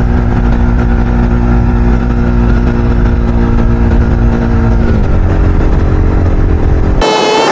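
Motor vehicle engine running steadily on the road, with heavy low rumble and a steady engine hum whose pitch shifts slightly about five seconds in. The engine sound cuts off abruptly near the end as a voice begins.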